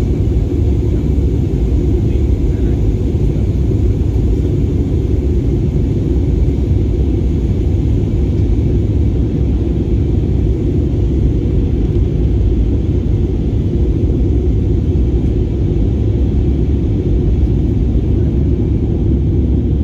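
Steady low rumble of engine and airflow heard inside a jet airliner's cabin in flight.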